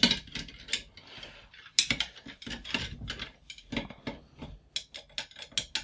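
Painted lamp arm rods clinking against one another and against a tall glass vase as they are dropped into it one by one: a string of irregular light clicks and taps.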